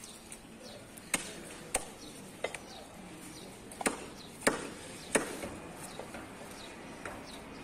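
Knife blade striking a wooden chopping block while beef is cut: about half a dozen sharp knocks at uneven intervals, the loudest around the middle.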